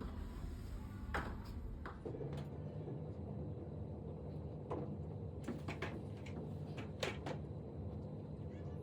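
Scattered light clicks and knocks of a makeshift hook tapping and catching against door hardware while fishing for the inside lever handle, over a steady low hum.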